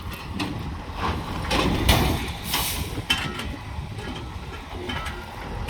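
Heavy truck engine running with a steady low rumble, with several short noisy bursts and a hiss about two and a half seconds in.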